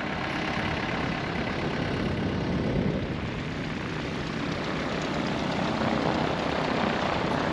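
A small propeller airplane's piston engine running steadily, heavy with rushing noise.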